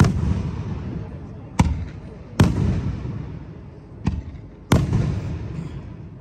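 Aerial firework shells bursting overhead: five sharp bangs in about five seconds, the fourth fainter than the rest, each followed by a low rolling echo that dies away.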